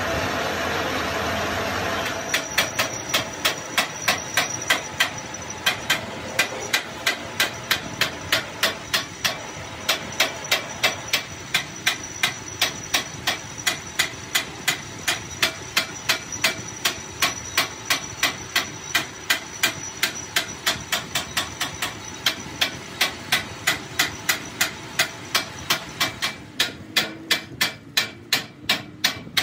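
Steady mechanical noise for about two seconds, then a hammer striking metal repeatedly at an even pace of about three blows a second, continuing without a break.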